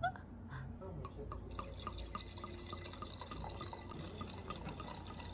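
White wine (Chardonnay) poured from its bottle into a balloon wine glass: a steady trickle broken by many quick little glugs.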